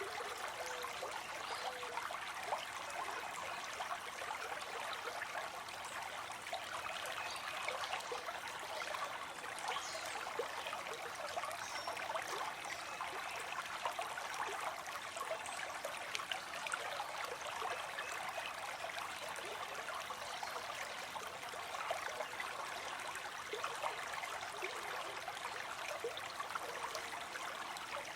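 Running water of a small stream, flowing steadily with constant fine splashing and bubbling.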